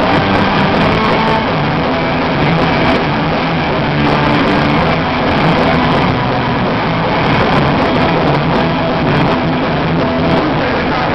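Punk rock band playing live: loud electric guitars over a drum kit, a dense steady wall of sound.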